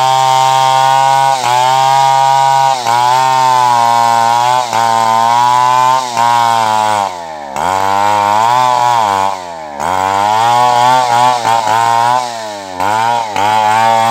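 Stihl two-stroke chainsaw running at high revs while cutting logs, its pitch dipping briefly now and then. About halfway through, the revs fall right down and climb back twice, then come several quick throttle blips near the end.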